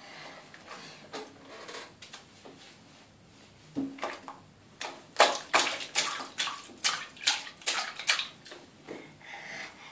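Toddler's hands splashing bathwater in a plastic baby bath: light sloshing at first, then from about four seconds in a quick run of splashes, about two or three a second, easing off near the end.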